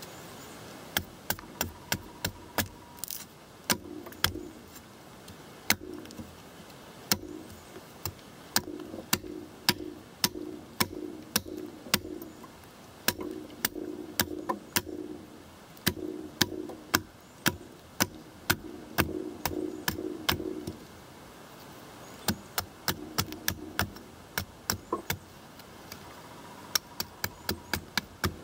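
Condor Pack Golok blade chopping into a wooden stick: a long series of sharp strikes on wood, coming quicker near the end, as the end is cut to a point for a tent stake.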